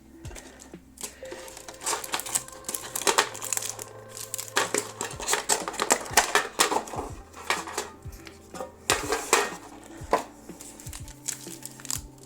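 Clicks, knocks and crinkling of a metal collector's tin and foil-wrapped booster packs being handled, over background music.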